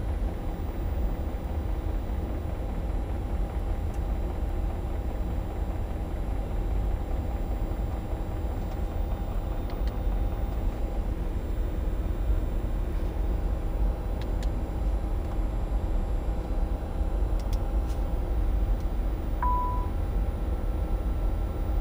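Steady drone of the aircraft's running auxiliary power unit (APU), heard inside the cockpit, with several steady tones over a deep hum. A single short beep sounds near the end.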